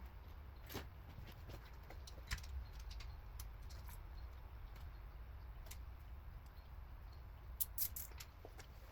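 A few light, sharp clicks and ticks, a pair of them near the end, over a faint low hum.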